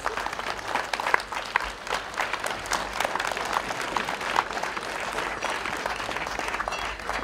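A small audience applauding, with many dense, overlapping hand claps.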